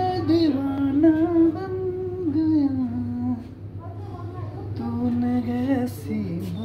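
A person humming a tune in long, gliding held notes, pausing for a second or so in the middle, over a steady low hum.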